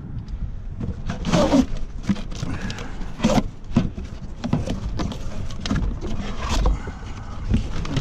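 Cardboard box being opened by gloved hands, its flaps pulled and folded back in a series of irregular scrapes and rustles, the loudest about a second and a half in and again around three seconds in, over a steady low rumble.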